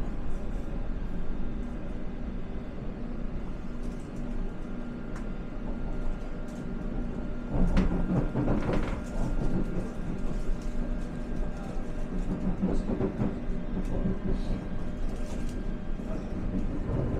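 Inside a London Underground S7 Stock train carriage on the move: a steady low rumble of wheels and motors, with a louder stretch of clattering about eight seconds in.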